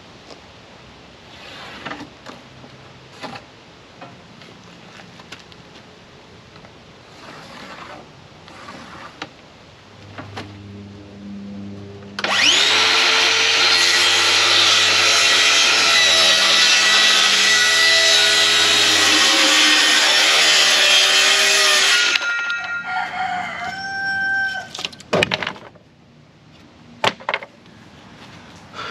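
A power saw spins up with a rising whine and cuts through wood for about ten seconds, then stops and winds down. After that, a rooster crows.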